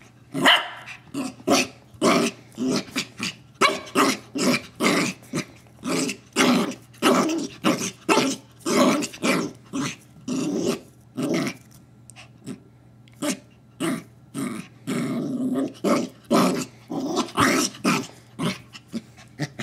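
Bichon frise puppy growling and barking over and over at a rawhide bone it is afraid of, in short bursts about two a second with a few longer growls.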